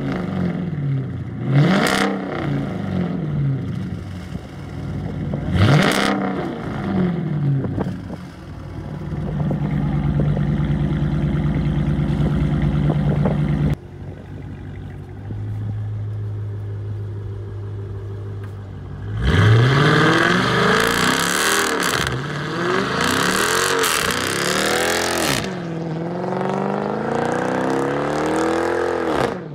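Straight-piped Dodge Charger R/T V8 with the mufflers deleted, revved in sharp blips, then held at steady revs. After a cut it runs at a steady low note, then revs hard and rises and falls in pitch through a burnout with tyre squeal for the last ten seconds or so.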